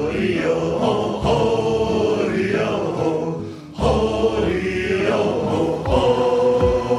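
Theme music with long held notes. It drops away briefly a little past halfway and starts again.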